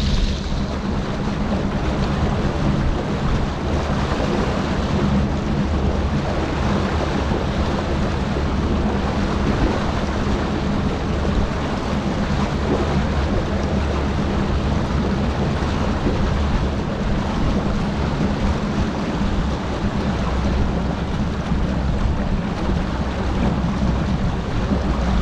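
Bass boat's outboard motor running steadily under way, a constant low drone mixed with the rush of water along the hull and wind on the microphone.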